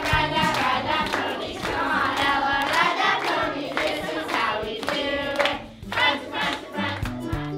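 A group of girls and young women singing together, clapping along.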